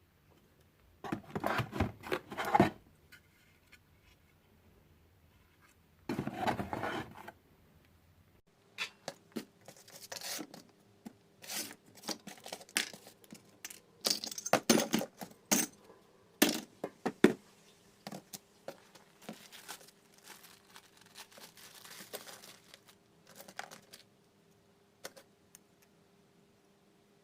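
Small metal parts and tools clinking, clicking and scraping as they are handled, with two longer rustling scrapes in the first few seconds and irregular clatters after that.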